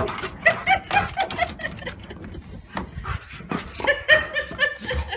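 A Bernese mountain dog whining and yipping in short, high calls that come in quick runs, mixed with scattered sharp taps and knocks.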